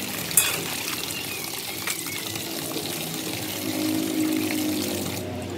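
Water sloshing and splashing in a plastic basin as hands wash raw chicken heads, with one short sharp knock about half a second in.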